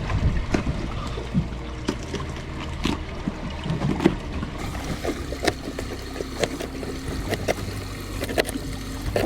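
Knife chopping bait into small pieces on a cutting board: sharp, irregular knocks, coming about twice a second in the later part, over the steady low hum and water sounds of a boat.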